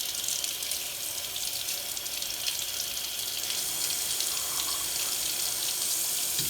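Tap water running steadily into a sink, flushing debris out of a carburetor.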